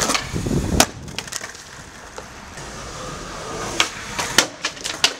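Skateboard wheels rolling on pavement, then sharp wooden clacks of the deck being popped and landing. The loudest clack comes just under a second in, and a quick run of clacks falls near the end.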